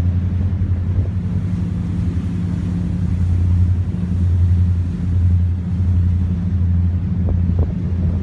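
The engines of a 74-foot power yacht running steadily under way, a loud, even low drone.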